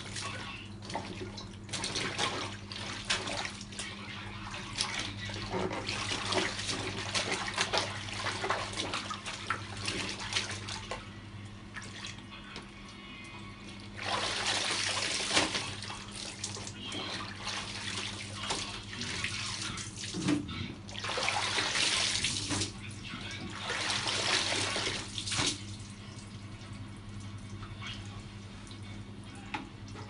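Clothes being washed by hand in a plastic basin of soapy water: irregular splashing and sloshing as wet garments are worked and lifted, with three louder rushes of water lasting a second or two each. A steady low hum runs underneath.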